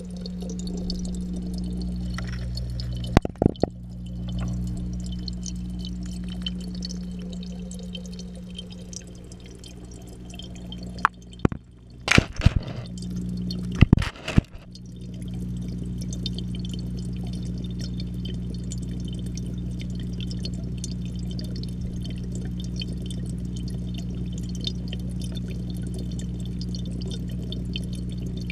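Aquarium pump's steady low hum carried through the tank water into an underwater camera housing, with faint bubbling. A few sharp knocks about three seconds in and again between about eleven and fifteen seconds in.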